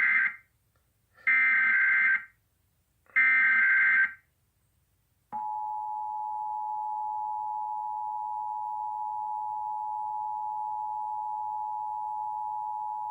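Emergency Alert System tones opening a Required Monthly Test. The SAME header sounds as three warbling one-second bursts of digital data tones about a second apart. About a second after the last burst comes the two-tone EAS attention signal, held steadily for about eight seconds and cut off sharply near the end.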